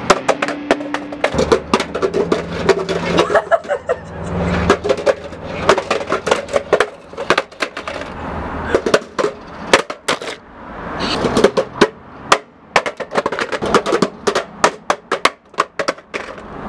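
Irregular clattering knocks and clicks on a hard surface, with music underneath.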